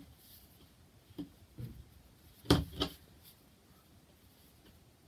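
Hand-knitting handling noise: hands working chunky merino wool against a tabletop, giving a few soft knocks and brushes. The loudest pair comes about two and a half seconds in.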